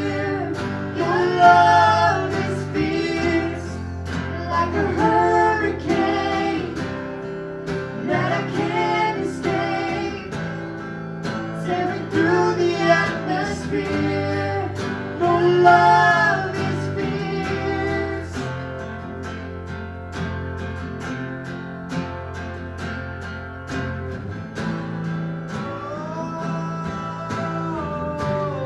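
Live worship band playing a slow song: strummed acoustic guitar with electric guitar and sung vocals. The singing stops a little over halfway through and the guitars carry on alone.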